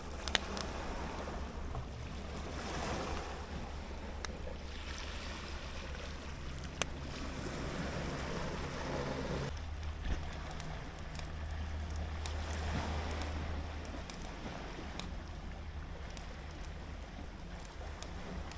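Sea waves washing on the shore, with wind buffeting the microphone as a steady low rumble.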